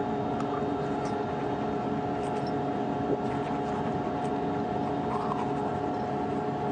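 Steady machinery hum of the International Space Station's cabin, the constant drone of its ventilation fans and equipment, holding several fixed tones with a few faint ticks.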